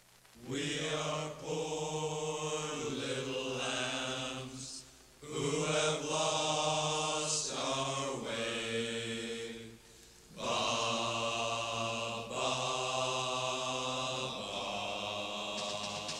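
Low, sustained chanting voices as opening music, in three long phrases a few seconds each. The notes change in steps and there are short pauses between phrases.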